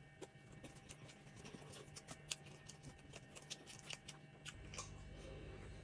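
Very faint mouth sounds of chewing food: many small, quick clicks, several a second. A low steady hum comes in about three-quarters of the way through.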